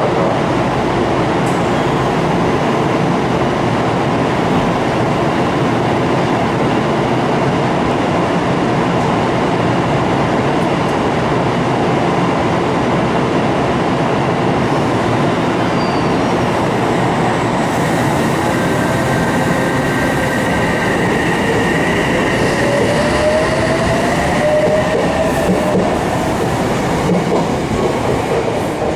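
Odakyu Line electric commuter train running through the platform: a loud, steady rumble of wheels on rail with some clatter. Near the end a faint rising whine comes in above it.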